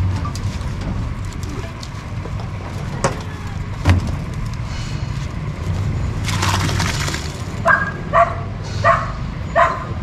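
Concrete mixer's engine running with a steady low rumble, two sharp knocks about three and four seconds in, and a dog barking four times near the end.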